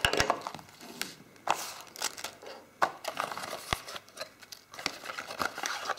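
Cardboard packaging and paper inserts rustling and scraping as they are handled, with scattered short clicks and taps.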